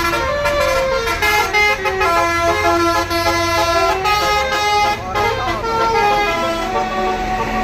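Bus telolet horn, a Basuri V4 multi-tone air horn, playing a melody of held notes that step up and down in pitch.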